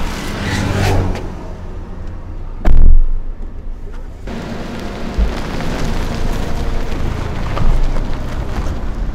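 Road traffic passing on a highway, a steady rush of vehicle noise, with one loud thud about three seconds in.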